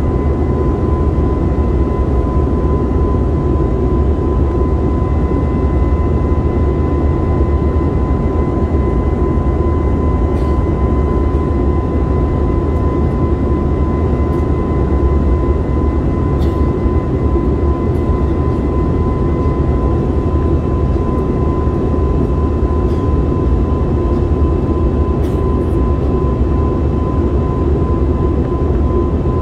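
Jet airliner cabin noise after takeoff: the engines and the airflow give a steady, loud rumble with a thin, steady high whine over it, and a few faint ticks.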